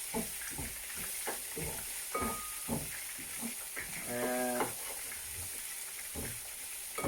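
Vegetables and lentils sizzling in a frying pan while being stirred, the utensil scraping and knocking against the pan in short strokes. A brief pitched, hum-like sound comes about four seconds in.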